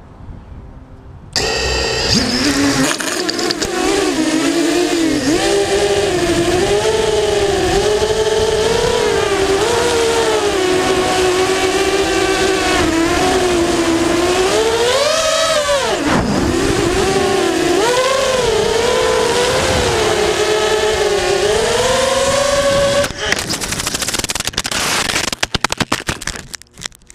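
Six-inch FPV racing quadcopter's four brushless motors and props, heard from its onboard camera. They whine loudly, the pitch rising and falling with every throttle change. Near the end the whine breaks off into a clatter of hits as the quad crashes, breaking two props.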